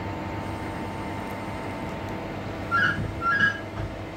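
Class 323 electric multiple unit running, heard from inside the passenger saloon: a steady hum with several steady whining tones from the traction equipment. About three seconds in, a few short high-pitched tones sound in quick succession, the loudest part.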